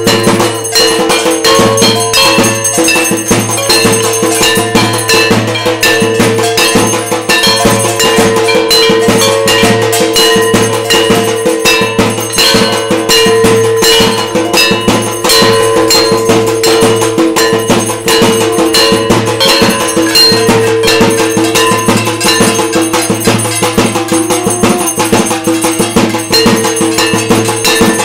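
Bells and metal gongs beaten rapidly and without a break, a dense clanging with a continuous ringing underneath: the percussion that accompanies the aarti of a Hindu puja.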